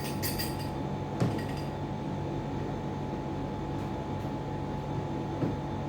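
A few light clinks of glass or dishes in the first second or so, over a steady electrical hum.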